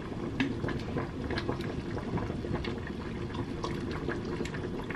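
Stainless steel pot of pork soft bones and vegetables in broth simmering on the stove: steady bubbling with many small pops.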